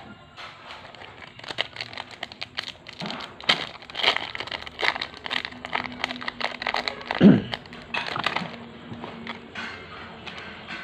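Crinkling of foil trading-card booster pack wrappers as packs are opened and the cards handled: a busy run of irregular crackles and rustles, with one dull thump about seven seconds in.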